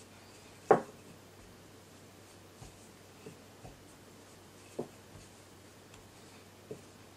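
Wooden rolling pin working pie dough on a floured silicone baking mat: one loud knock about a second in, then a handful of softer, scattered thuds.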